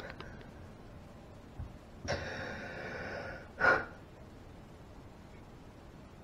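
A distressed man's breathing: a long, ragged breath starting about two seconds in, then a short, sharp, loud gasp.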